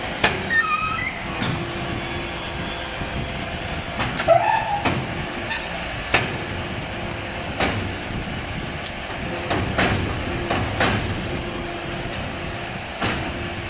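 HBY4-10 automatic compressed-earth brick machine running: a steady hiss and hum broken by sharp metallic clunks every second or two as it presses and pushes out interlocking bricks.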